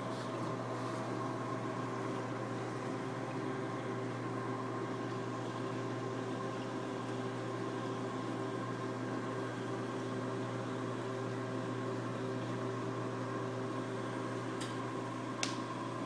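Steady hum and water noise of a reef aquarium's pumps and circulation running, with two short clicks near the end.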